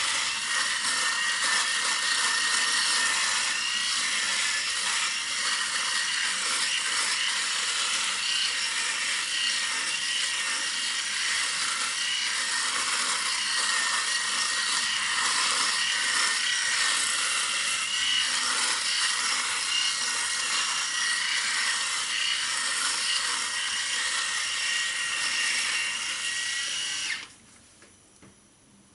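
Electric shaver running against stubble: a steady high buzz with a gritty cutting rasp and a faint whine, which stops abruptly near the end.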